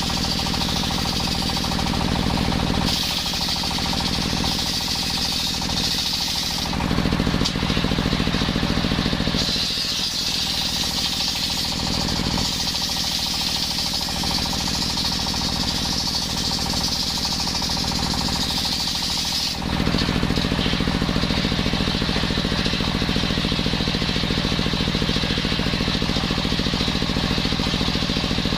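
Machine circular saw (serkel) running with a rapid pulsing beat while sawing coconut-wood beams. The sound shifts several times as cuts start and stop, and it is louder from about seven to nine seconds in and again from about twenty seconds.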